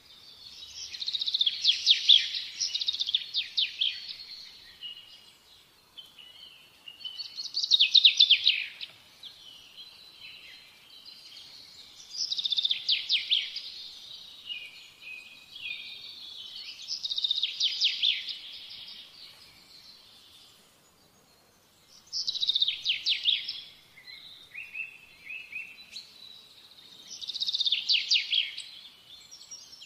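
A songbird singing: six high-pitched phrases of rapid trills, one about every five seconds, with softer chirps between them.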